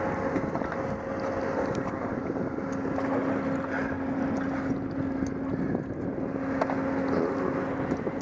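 An engine running steadily at a constant speed: an even drone with a steady hum.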